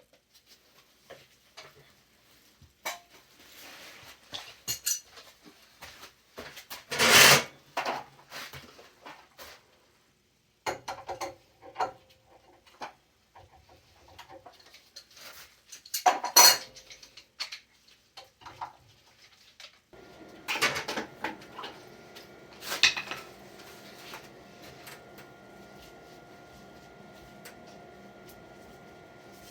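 Metal clinking and clattering, as of tools and metal parts being handled, with three louder clanks. In the last third a steady hum with faint tones runs underneath.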